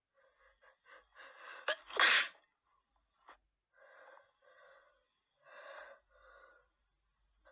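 A woman with a cold sneezes once, loudly, about two seconds in, after a few short catching breaths: a messy cold sneeze. Four breathy gasps follow over the next few seconds.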